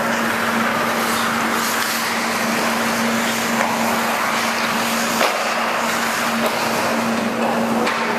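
Hockey skates carving and scraping across the rink ice, a steady rushing hiss, with a few sharp clacks about three and a half, five and eight seconds in, over a constant low hum.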